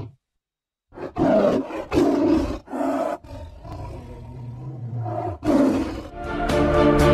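Tiger roar sound effect: after a brief silence, several loud short roars, a lower, quieter rumbling stretch, then one last roar. Music with organ and piano tones fades in near the end.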